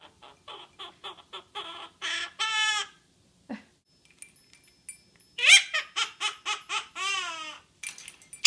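Quaker parrot mimicking a cackling witch laugh: a run of rapid, evenly spaced laugh-like pulses and a drawn-out cry, then after a pause a louder second round of cackling that ends in falling, sliding cries.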